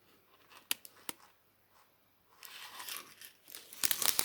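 Small plastic bags of diamond-painting drills being handled: a couple of faint clicks, then plastic crinkling that starts about halfway through and grows louder near the end.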